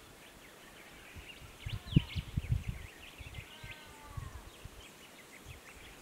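Small birds chirping in the background, with short high notes bunched from about one and a half to three seconds in and a few lower calls near four seconds. Low dull thumps lie beneath them; the loudest comes about two seconds in.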